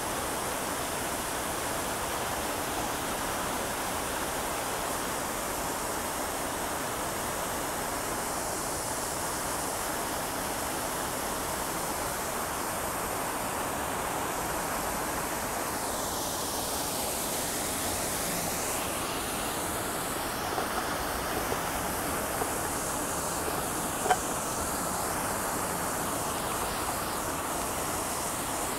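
Lincoln Center's Revson Fountain, its many short jets splashing steadily back into the basin as a constant rush of falling water.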